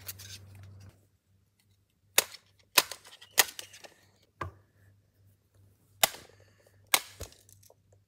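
A bat whacking a hanging plastic ceiling-fan motor housing: about seven sharp, irregular cracks, the loudest about three seconds in.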